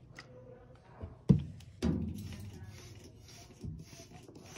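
Two sharp knocks a little over a second in, then a trigger spray bottle misting water in quick repeated squirts, about two a second.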